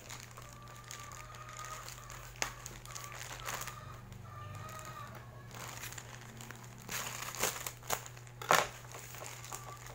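Clear plastic packaging being crinkled and pulled open by hand, a tough wrapper around a T-shirt: a run of scattered crackles with a few sharper snaps.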